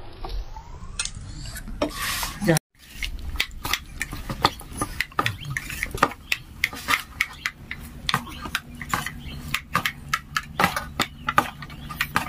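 Wheat-flour dough being kneaded by hand in a stainless-steel bowl: irregular clicks, taps and scrapes of fingers and dough against the metal. The sound drops out completely for a moment a little over two seconds in.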